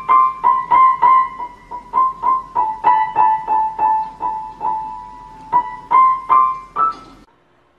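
Piano keys pressed one at a time by a cat's paw: single notes struck about three times a second, mostly the same note over and over, the pitch stepping down a little about a third of the way in and back up later. The notes stop suddenly near the end.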